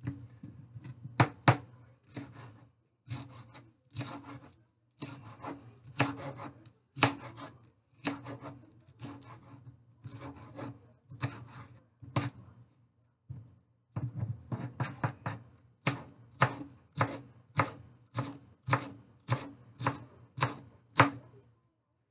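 Kitchen knife chopping a green bell pepper on a cutting board: sharp knife strikes at uneven intervals with short pauses, settling into a steadier run of about two chops a second in the second half.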